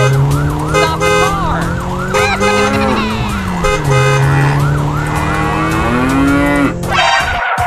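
Toy-video sound effects: an emergency siren yelping in quick rises and falls, about four a second, over a long low tone that slides slowly up and down.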